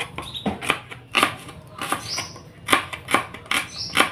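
Knife slicing shallots: a run of short, sharp clicks at an uneven pace, a few a second, one with each cut.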